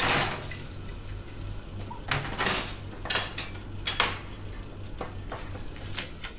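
Dishes and kitchenware clinking and clattering in a handful of separate knocks, someone rummaging at a kitchen counter.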